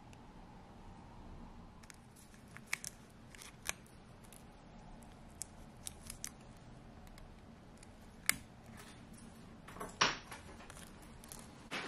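Light clicks of brass tweezers and the crinkle of a foil parts packet being opened and handled, with the loudest crinkling about ten seconds in.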